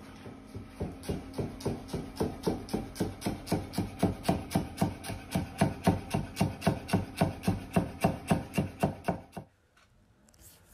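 Chef's knife chopping green chili and coriander on a cutting board: rapid, even knocks of the blade on the board, about five a second, stopping abruptly about nine and a half seconds in.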